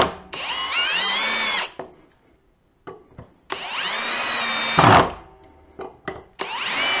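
Ridgid Octane cordless drill driving 3-inch deck screws into timber: three short runs of the motor, each whine rising in pitch as the trigger is squeezed and then holding steady until it stops. The second run ends in a loud knock, and there are small clicks between the runs.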